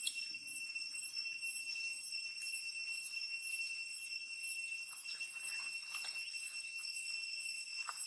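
A steady high insect drone with a light, even pulsing. Faint soft smacking clicks of an infant macaque suckling come through, mostly in the second half.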